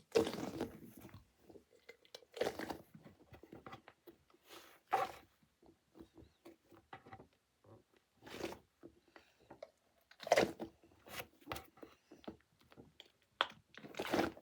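A squishy toy being squeezed and handled close to the microphone: irregular soft crackling, rubbing and squelching noises, with a louder burst every second or few.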